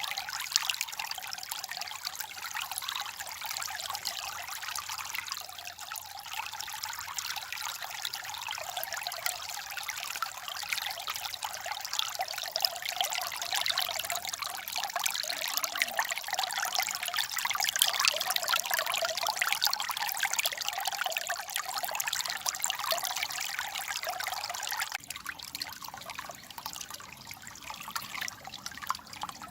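Stream water babbling and trickling over stones, a steady splashing that turns abruptly softer near the end.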